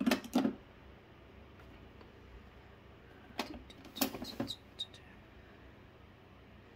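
A few short, sharp clicks and taps: two right at the start, then a quick cluster of them around four seconds in.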